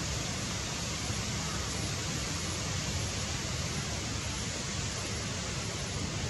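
Steady, even hiss of background ambience with a low rumble underneath and a faint thin high tone; no distinct calls, knocks or rustles stand out.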